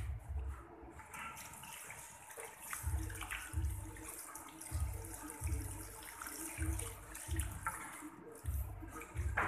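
Water running from a salon shampoo-basin tap and hand shower, splashing over hair into the ceramic basin as the hair is rinsed. Soft low thuds repeat regularly underneath, about every two-thirds of a second.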